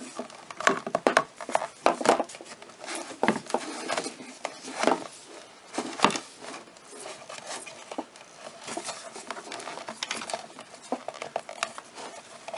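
Irregular clicks, knocks and rustling from handling a plastic Corvette C5 side mirror housing while its wiring harness is worked through the mirror base, with a few sharper knocks among them.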